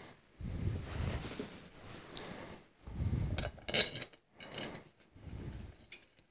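Metal carburetor parts clinking, clicking and knocking as a Holley 4160 carburetor is handled and reassembled by hand. A sharp metallic click about two seconds in is the loudest, with a cluster of clicks around four seconds in.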